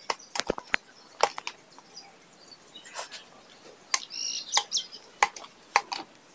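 Scattered sharp clicks and crinkles from a green-screen cloth and a plastic packet being handled, with a few short bird chirps.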